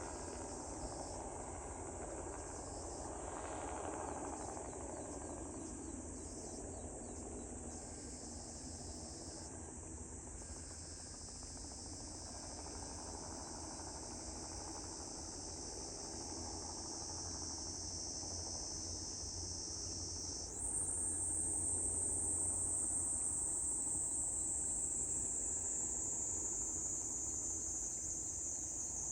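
A steady chorus of insects shrilling high, jumping louder and slightly higher about two-thirds of the way through, over a faint low hum.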